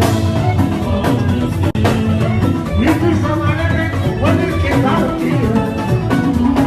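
Upbeat music with a strong bass and a steady beat, with some singing.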